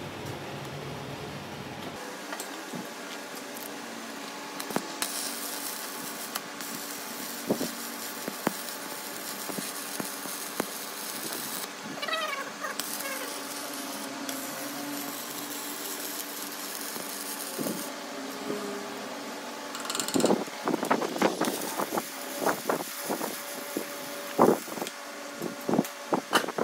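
Arc welding on a steel shaft held in a lathe chuck: a steady crackling hiss as weld is laid on to build up the worn section of the shaft. In the last several seconds a quick run of sharp knocks, louder than the welding, comes in.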